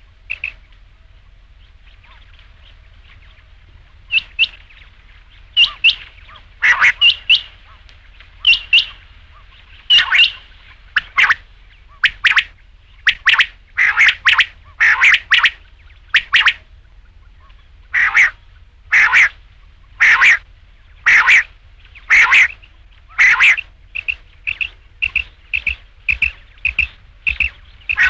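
Quail calling: loud, short, sharp notes repeated over and over, some singly and some in quick pairs with short gaps, speeding into a fast even run of shorter notes near the end. A faint low hum runs underneath.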